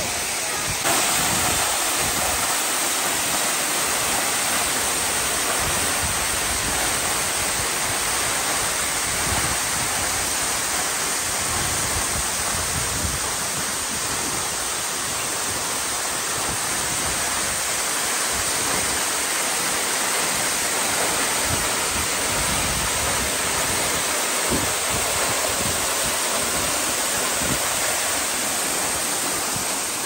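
Waterfall cascading and splashing down stepped rock ledges, a steady rush of falling water.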